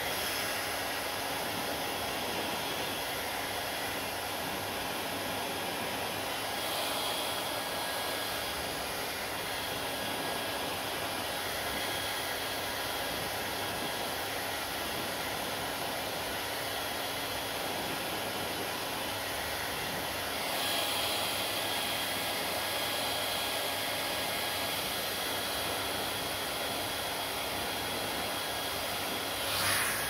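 Panasonic hair dryer running steadily: an even rush of blown air with a faint steady whine from its motor, the rush changing a little a few times as the dryer is moved around the head.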